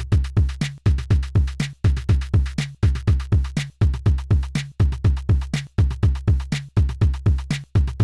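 Korg Drumlogue hybrid drum machine playing a looping pattern. Deep pitched drum hits, several a second and each dropping quickly in pitch, sound under crisp hi-hat ticks, and the groove repeats about once a second.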